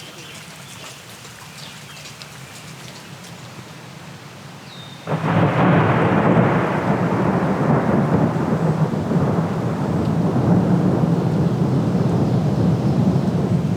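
Heavy rain that starts suddenly about five seconds in and keeps on loud and steady, with a low rumble underneath; before it, a quieter stretch with faint scattered ticks.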